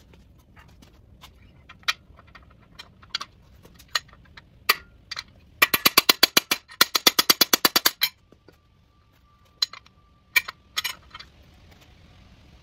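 Cam bearing removal tool being worked in the cam tunnel of a small-block Chevy 327 block: scattered clinks of the tool's pieces, then a rapid run of sharp knocks, about ten a second for over two seconds with a brief break, and a few single knocks near the end.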